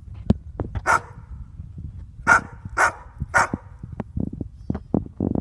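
Dog barking at a cat: four sharp barks, three of them in quick succession, with short low knocks in between.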